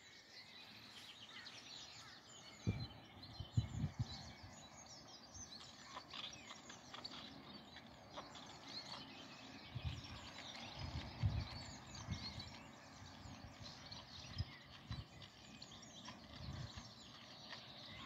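Songbirds chirping and singing over a steady outdoor hum, with a few low thumps a few seconds in and again about ten seconds in.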